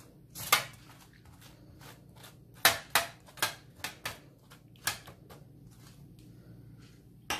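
A metal spoon spreading custard cream over a baked puff-pastry layer, giving about a dozen irregular light clicks and taps as it scrapes and knocks on the crisp pastry.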